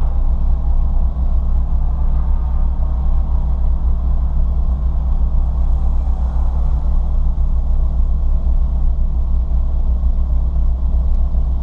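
Ford Fiesta ST heard from inside the cabin: a steady low drone of engine and road noise at an unchanging engine speed.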